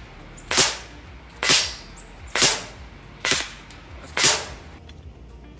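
Five shots from a 6XP airsoft pistol, sharp snapping cracks evenly spaced about a second apart.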